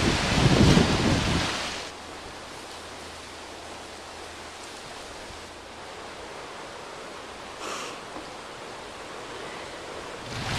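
Surf and wind noise, loud with low rumble for about the first two seconds, then dropping to a faint steady wash.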